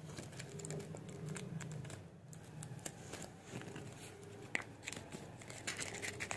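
Thin clear plastic bag and paper crinkling and rustling in the hands as a small handmade paper packet is unwrapped, with irregular crackles and one sharper crackle about halfway through.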